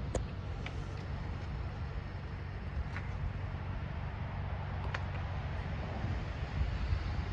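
Steady low rumble of snowstorm wind on the microphone, with a few faint clicks.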